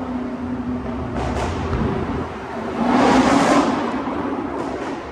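Straight-piped Dodge Hellcat supercharged V8 exhaust, recorded from a phone held out of the window in a tunnel. The loud note starts as a steady drone and swells into a louder rush of noise about three seconds in, then eases off.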